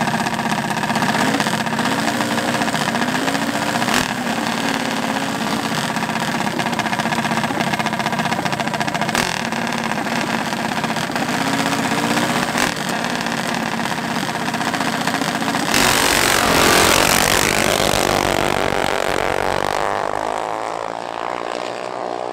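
Small mini bike engines idling at the start line, their pitch wavering slightly with light throttle blips. About sixteen seconds in the sound changes suddenly to a louder, rougher engine noise that then slowly fades.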